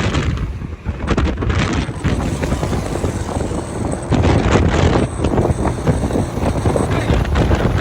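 Wind buffeting the microphone on a moving motorcycle, a loud rough rushing with irregular gusts, with engine and road noise underneath.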